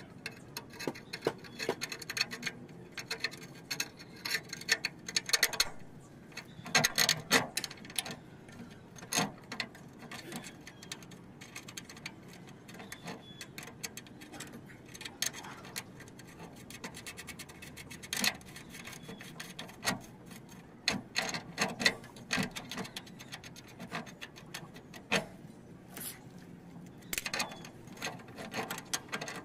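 Irregular small clicks, taps and rubbing as a handbrake cable and its fittings are handled and pushed into place against a metal bracket under a car, in scattered clusters.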